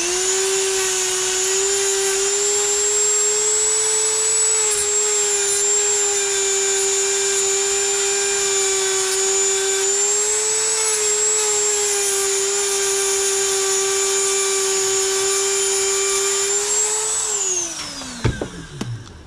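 Powered wire wheel spinning up and running with a steady high whine, its pitch dipping slightly now and then as a small knife part is cleaned on it, then winding down to a stop near the end.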